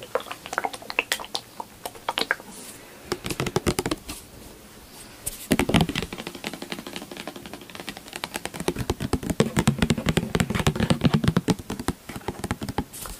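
Long fingernails tapping quickly on a small glass bottle of face oil, in fast runs of sharp clicks with a short pause in between.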